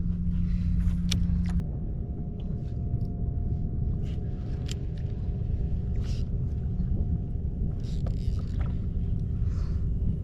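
Small Honda 2.3 hp outboard motor running steadily with a low rumble, its tone shifting about one and a half seconds in, with a few light knocks on the kayak.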